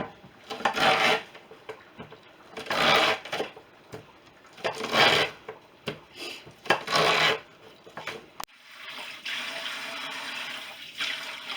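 Ears of corn scraped along the blades of a Lee's corn cutter and creamer, four rasping strokes about two seconds apart. After a sudden break, a steady hiss follows near the end.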